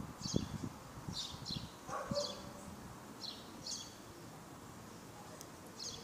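Small birds chirping in short, high calls, repeated about once a second, over low rustling and handling bumps.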